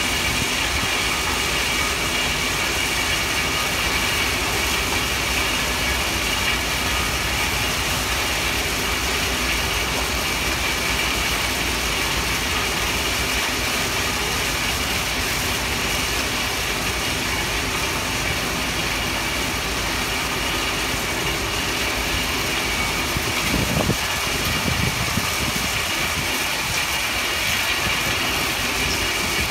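Stone crushing plant running: the cone crusher, vibrating screen and belt conveyors make a steady mechanical din with a low rumble and a constant high whine. A short louder bump comes near the end.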